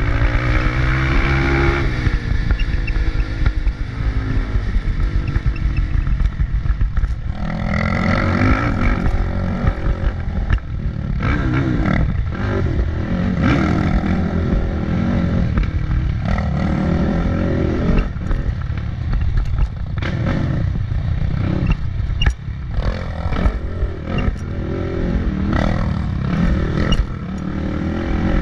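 Motorcycle engine revving up and down again and again while riding, with scattered knocks and clatter.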